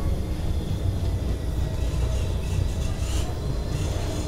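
Safari tram running, heard from on board as a steady low rumble.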